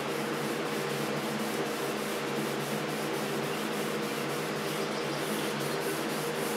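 Wet sandpaper rubbed by hand in straight strokes over the clear coat of a painted motorcycle part: a steady scratchy hiss, with a low steady hum beneath it.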